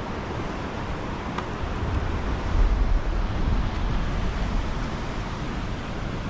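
Swollen floodwater rushing steadily, with wind buffeting the microphone. A deeper low rumble swells about two and a half seconds in.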